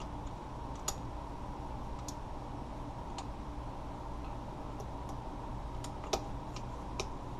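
Scattered light clicks and taps of small metal parts being handled and refitted in a Ruger 10/22 trigger group, about nine in all, the sharpest about six seconds in, over a steady low hum.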